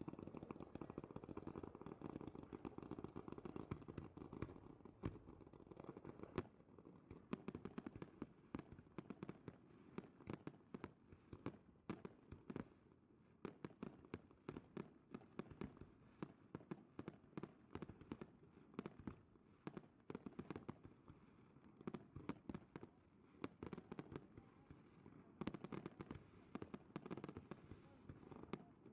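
Fireworks display: a rapid, irregular run of sharp pops, bangs and crackles from bursting shells, faint and distant. Sparser at first, then coming thick and fast.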